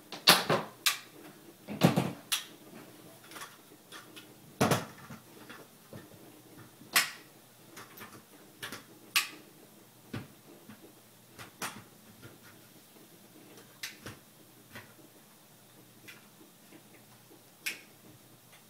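Irregular clicks, knocks and clatter of a collapsible tripod stand and its mast being handled, unfolded and fitted together on a wooden floor. The knocks are loudest and most frequent in the first few seconds, then come sparser and fainter.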